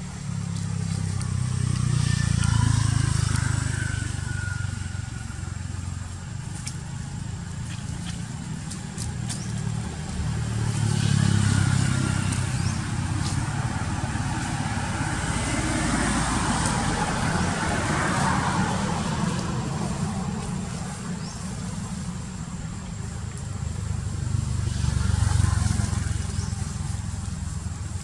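Motor vehicles passing on a road, their low rumble rising and fading three times, with a thin steady high tone underneath throughout.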